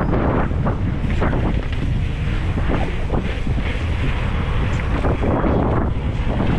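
Heavy wind buffeting on the microphone: a loud, steady low rumble with scattered short knocks through it.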